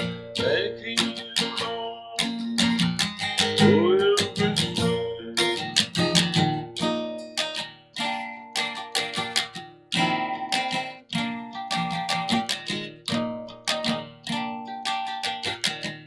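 Acoustic guitar with a capo playing chords in a steady rhythm, an instrumental passage with no singing.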